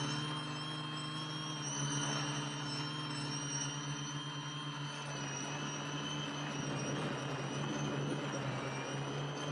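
Quadcopter's electric motors and propellers whirring steadily in flight: a low hum with several high whining tones that drift slightly in pitch.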